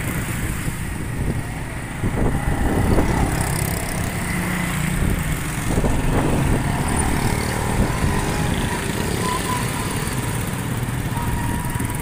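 A small road vehicle's engine running steadily on the move, with road and wind noise.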